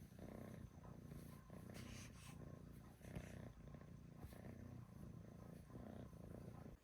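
A small dog's faint, low rumbling in repeated pulses, a little under one a second.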